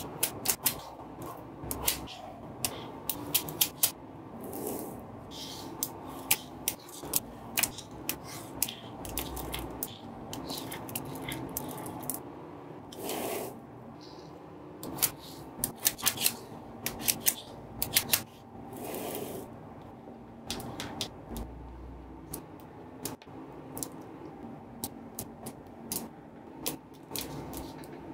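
Small magnetic balls clicking and snapping together in quick, irregular clicks as they are placed, with a few short scrapes in between.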